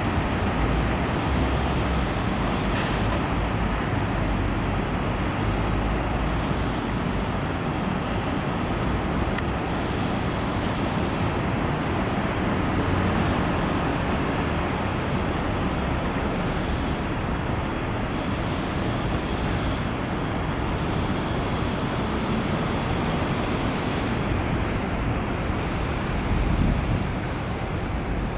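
Steady outdoor noise of road traffic, a continuous rumbling hiss, with a faint very high-pitched whine that pulses on and off. No separate water drips stand out.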